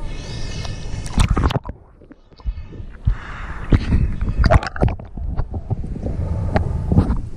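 Seawater sloshing and gurgling around a waterproof camera held at the surface and dipped under, with many knocks and clicks against its housing. It goes briefly muffled and quieter about two seconds in.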